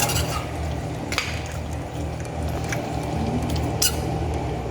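Spoon stirring a pot of curry chicken, with a few sharp clinks against the pot, about a second in and near the end, over a steady low rumble.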